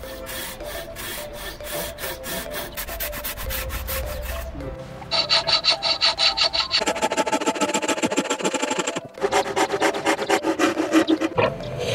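Hand saws cutting into a wooden plank clamped in a vise, a fast run of back-and-forth sawing strokes that grows much louder about five seconds in. Quiet background music plays underneath.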